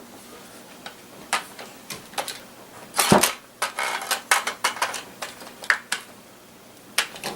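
Metal clicks and clacks of Mossberg 500 pump shotgun parts being handled and fitted together during reassembly, with a heavier knock about three seconds in, a quick run of clicks after it, and two more near the end.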